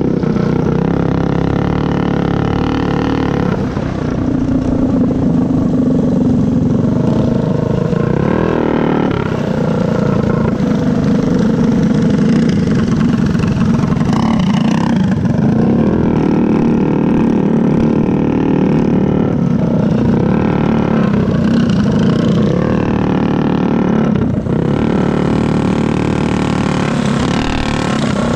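Stock Predator single-cylinder four-stroke go-kart engine running hard at close range, its pitch dropping and climbing back up several times as the throttle is eased and reopened through the corners.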